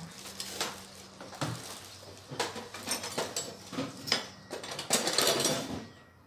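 Irregular metallic clicks, knocks and rattles of a wrench and loose parts being handled on a washing machine's underside, with a longer scraping rustle about five seconds in.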